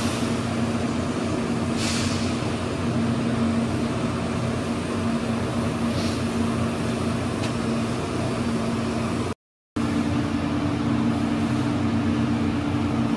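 Steady machine hum with fan noise from running equipment, with a few brief faint hisses. The sound drops out for a moment about nine seconds in.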